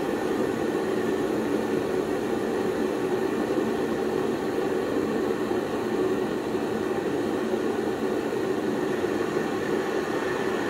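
Handheld butane torch burning with a steady hissing flame.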